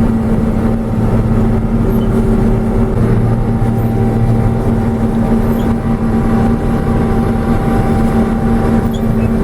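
John Deere 6620 sidehill combine harvesting corn, its engine and threshing machinery running in a steady, unchanging drone, heard from the operator's cab.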